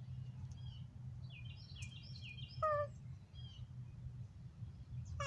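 Small birds chirping repeatedly, with a quick run of chirps midway, over a steady low hum. The badly injured cat gives a short meow about halfway through and another right at the end.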